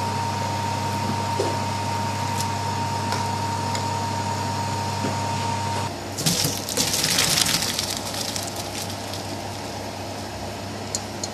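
A steady hum with a faint high tone, then about halfway in hot water from a pot of boiled fusilli gushes and splashes into a stainless-steel colander in a steel sink for about two seconds before fading to a trickle as the pasta is drained.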